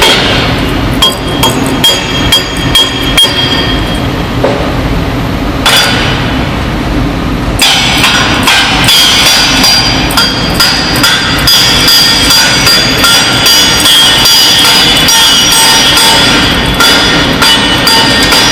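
Repeated metal-on-metal blows and clanking on heavy steel, with metallic ringing. The strikes come singly at first, then merge into a dense, continuous clatter from about eight seconds in.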